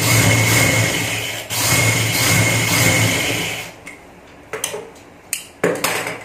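Electric sewing machine stitching a pintuck in cotton fabric: it runs steadily, with a brief pause about one and a half seconds in, and stops a little before four seconds in. After that come a few short clicks and rustles as the fabric is handled.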